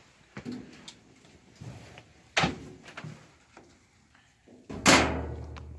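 A clothes dryer being shifted and handled, giving a few scattered knocks and bumps. A sharp knock comes about two and a half seconds in, and the loudest bump about five seconds in, followed by a low hum.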